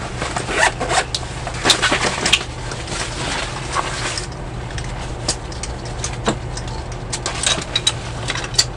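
Tactical vest being put on: fabric rustling and handling noise with many short, irregular clicks and knocks from its straps and fittings, over a steady low hum.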